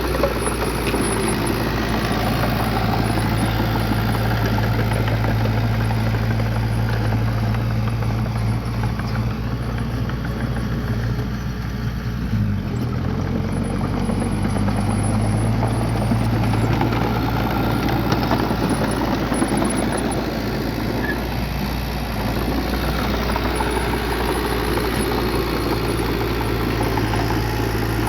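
Bulldozer diesel engine running steadily. Its pitch dips briefly and recovers about halfway through.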